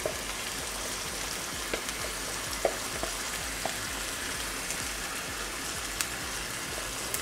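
Garlic-seasoned turkey thigh slices sizzling steadily in a little olive oil in a stainless steel pot over high heat as they sear, with a few light clicks.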